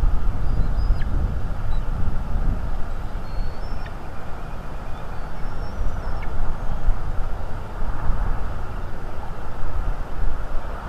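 Wind buffeting the nest camera's microphone, a steady low rumble, with faint high chirps of small birds now and then.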